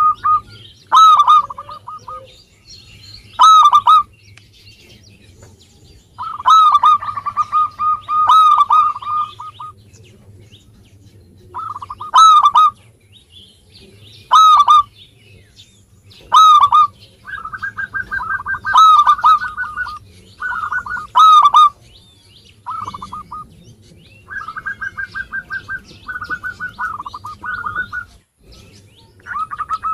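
Zebra dove (perkutut) cooing: phrases of rapid staccato notes broken by short pauses, with a louder note every two or three seconds.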